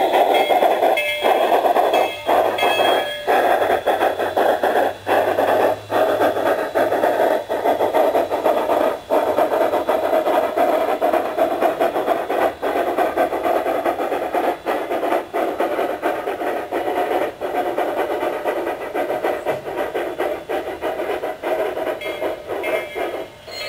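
Phoenix 2K2 sound card in a Bachmann large-scale Shay playing simulated steam locomotive sounds through the model's small speaker as it runs. The sound is a steady, loud, hiss-like noise with brief dropouts now and then.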